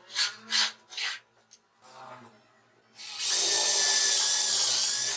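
Homemade mini drill press's 775 DC motor starting about three seconds in and running steadily for about two seconds with a faint whine, then stopping. Before it, three short scraping sounds.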